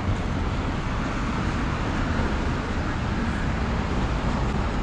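Steady city street traffic noise: an even, low rumble of vehicle engines and tyres on a busy avenue.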